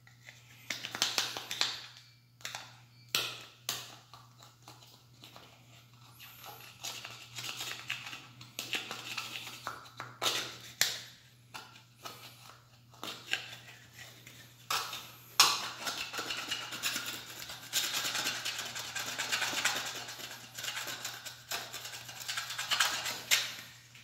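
Small knife blade scraping dried paint off the plastic ring of a smoke detector, in short irregular strokes at first and a longer, nearly unbroken run of scraping in the second half.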